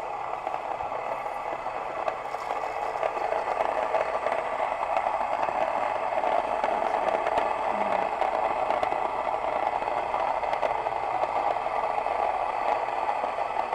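Mockmill electric grain mill, with corundum-ceramic grinding stones, running steadily as it grinds wheat berries together with dried rosemary into flour.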